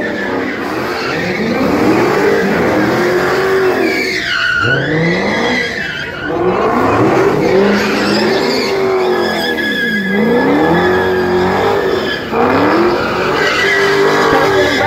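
A car drifting: its engine revs up and down again and again while the tires squeal on the pavement. A higher squeal rises and falls about four seconds in.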